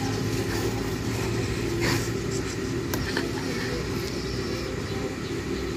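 A steady low engine hum, with a brief click about two seconds in.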